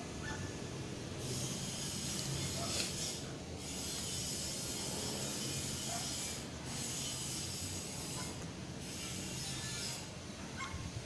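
Watercolour brush stroking across textured watercolour paper, a soft hissing rub in several long strokes broken by short pauses as the brush is lifted.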